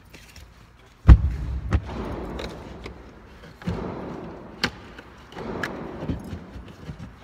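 Gunfire from other lanes of an indoor shooting range: a loud shot about a second in, then several more spaced irregularly, each heard as a deep boom with a reverberant tail.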